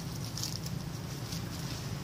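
Dry leaf litter rustling and crackling in a few short, faint patches, over a steady low hum.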